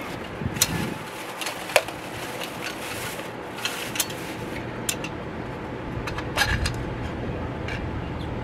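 Small metal grill parts and a plastic bag handled in a plastic storage tub: scattered light knocks and clicks of metal against plastic, with rustling, over a steady low background rumble.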